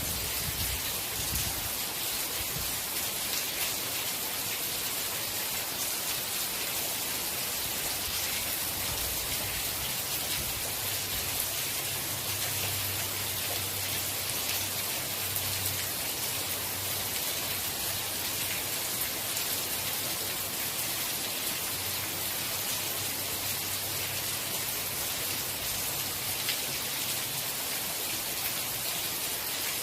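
Steady rain: an even hiss of falling rain, with a faint low rumble coming and going in the middle.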